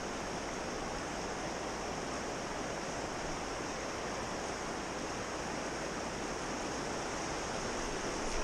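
Steady rush of river water flowing over rocks, an even hiss with no change in level.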